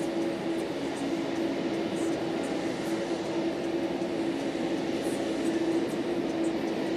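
Steady jet aircraft noise at an airport apron: an even drone carrying two steady low hum tones.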